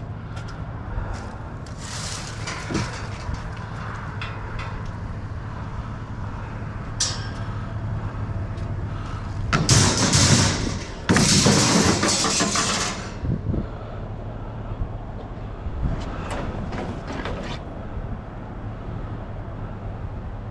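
A vehicle engine running steadily with a low hum. About ten seconds in come two loud rushing noises lasting a second or two each, with scattered clicks and knocks around them.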